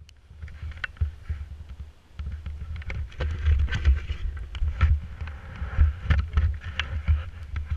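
Knocks, clicks and rubbing from a camera being handled and adjusted, over the low, muffled rumble of an idling snowmobile.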